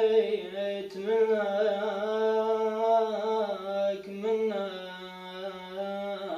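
A solo voice singing an unaccompanied Iraqi mawwal, drawing out long melismatic held notes with wavering ornaments and no instruments.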